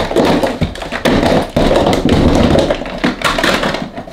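Hands rummaging through clutter on a cupboard shelf, shifting bottles, plastic bags and cables: a continuous rustle and clatter of many small knocks and taps.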